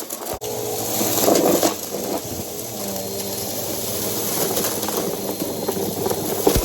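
Bissell PowerForce Helix upright vacuum cleaner running steadily, a hiss of airflow over a motor hum, with a brief drop in sound about half a second in.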